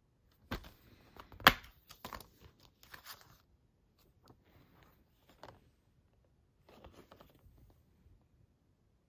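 Plastic Blu-ray case snapped open, with two sharp clicks, the louder about a second and a half in. The case and its paper insert are then handled, rustling and clattering lightly.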